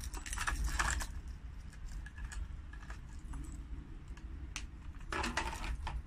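Clear plastic lure packaging crinkling and rustling as a blade-bait lure is pulled out, with small metallic clinks and jingles from its dangling metal blade and treble hooks. Most of the crackling comes in a burst at the start and again about five seconds in, with scattered ticks in between.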